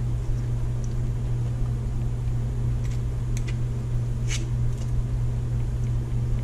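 A steady low hum, with a few faint clicks and scrapes around the middle as a spoon scoops lumps of solid vegetable shortening into a deep fryer pot.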